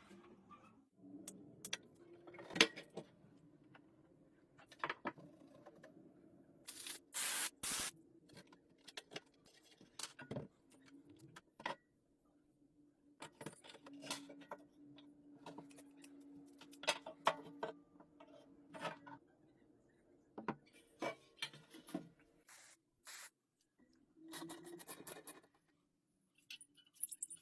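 Irregular clicks, taps and scrapes of hand tools working on the metal parts of an old rusty lawn mower, with two short hissing bursts about seven seconds in.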